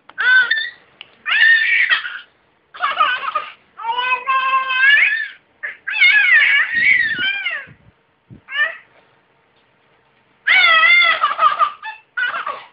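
A baby squealing and shrieking excitedly in a string of short, loud bursts, the pitch swooping up and down, with a pause of a couple of seconds about two-thirds of the way through.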